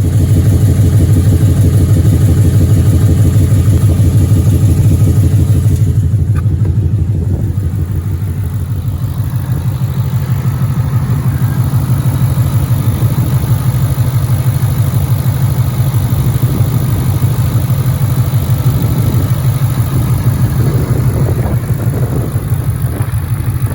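Ford Mustang GT's 5.0 L Coyote V8 idling, with a fast, steady pulsing that carries the light rapid 'typewriter tick' these engines are known for, a tick that typically shows up right after an oil change.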